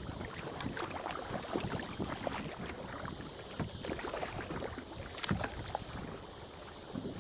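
Kayak paddles dipping and splashing in lake water, a busy run of irregular splashes and drips. One sharp click about five seconds in.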